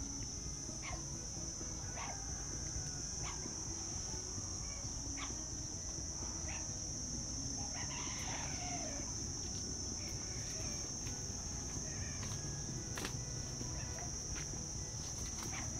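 A steady, high-pitched insect drone, with a single bird call lasting about a second some eight seconds in and a few short clicks or chirps scattered through.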